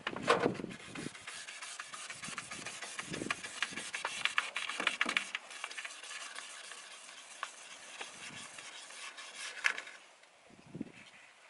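Wet sandpaper rubbed by hand over a plastic taillight lens in quick back-and-forth strokes, a dense scratchy rasp. A bump right at the start; the strokes thin out and go quieter after about ten seconds.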